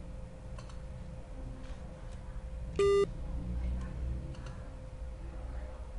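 A single short electronic beep, lasting about a fifth of a second, about halfway through. It sits over a faint steady hum and a few soft clicks.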